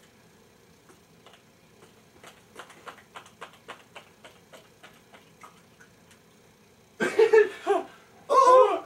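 Faint, irregular light clicks and taps, about two or three a second, for several seconds; then a loud burst of a person's voice breaks in about seven seconds in.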